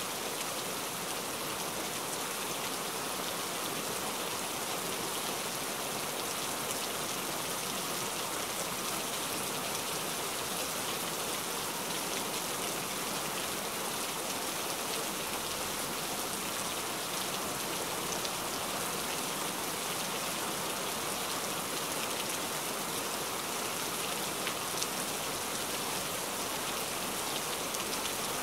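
Steady rainfall: an even hiss with many fine drop ticks, no change in strength.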